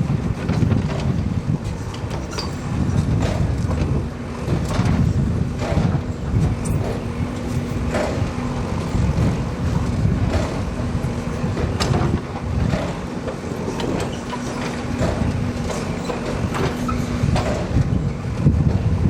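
Bull Smart backhoe loader's diesel engine running steadily under a low rumble, with irregular sharp knocks and clanks from the working machine.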